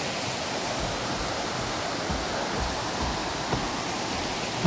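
Fast river water rushing over rocks through shallow rapids: a steady, even rushing noise.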